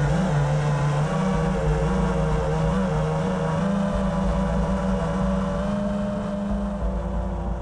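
Brushless motors of an Emax Hawk5 FPV racing quadcopter heard through its onboard camera: a steady, loud buzzing whine whose pitch steps up and down as the throttle changes.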